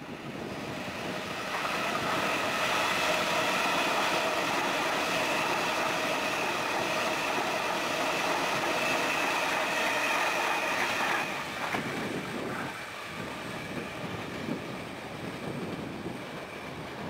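Double-deck electric suburban train passing close by, its wheels rumbling on the rails under a steady high whine. The sound drops sharply about eleven seconds in as the train clears, leaving a quieter rumble.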